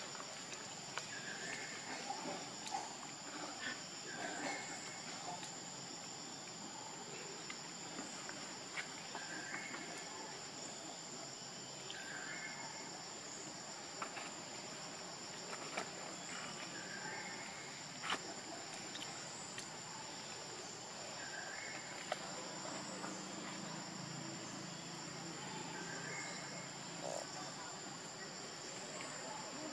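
Steady high-pitched insect drone, with a short chirp recurring every few seconds and a few faint clicks.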